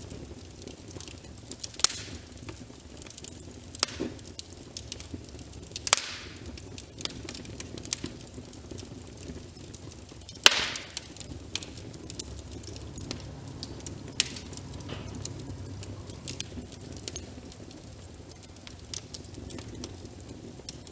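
Wood fire in a fireplace crackling, with irregular sharp pops, a few of them loud, over a steady soft hiss of rain.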